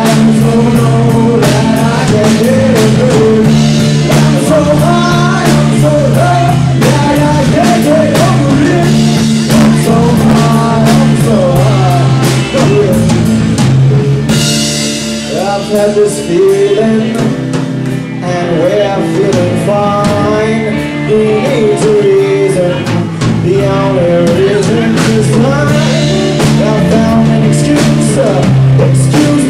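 Live rock band playing loud: drum kit, electric guitar and bass, with a singer's voice over them. The lowest notes drop out for a few seconds about halfway through, then return.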